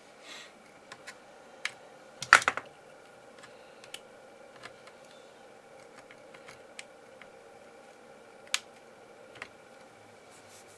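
Hands handling a bare laptop motherboard: scattered light clicks and taps, with a loud cluster of clicks about two seconds in and another sharp click later, over a faint steady hum.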